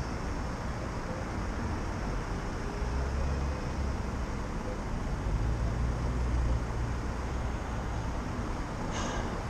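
City street traffic heard while riding a bicycle: a steady rushing noise, with a low rumble that swells about three seconds in and again from about five to nearly seven seconds in.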